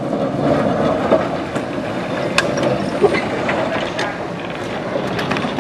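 Historic electric tram GVB 533 heard at close range: a steady mechanical rumble with several sharp clicks and knocks.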